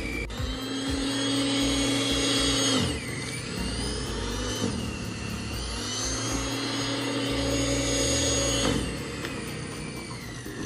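Snow Joe electric snow blower's motor whining steadily at full speed, winding down about three seconds in, spinning back up a couple of seconds later, and winding down again near the end.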